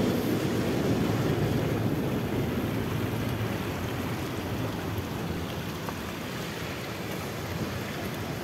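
Water from fountain jets splashing into stone pools, a steady rush that slowly fades.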